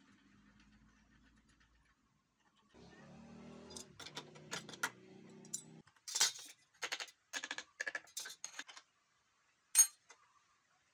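Metal clinks and clanks of wrenches and steel tools being picked up and set down on the steel top of a spindle moulder while its cutter is set up, a quick string of them in the second half and one loud clank near the end. A faint steady hum runs for a few seconds before the clanks.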